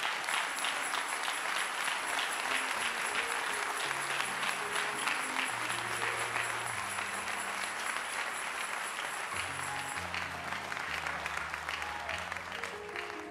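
Congregation applauding, with music of held low notes coming in beneath it a few seconds in; the applause slowly thins out near the end.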